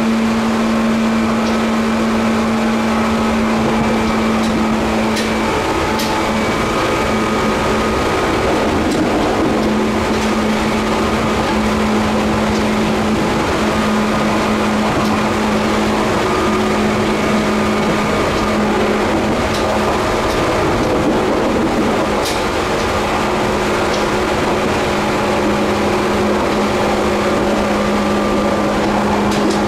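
Running sound inside a Seibu 2000 series field-chopper-controlled electric train's motor car at a steady speed. A steady low hum sits over the rumble of wheels on rail, with a few faint clicks.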